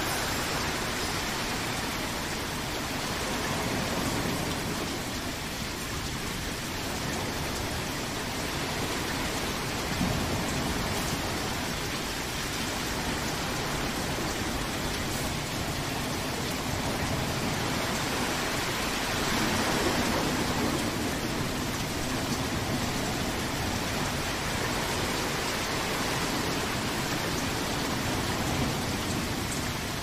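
Heavy rain falling steadily, swelling louder and easing a few times, with one brief sharper hit about a third of the way through.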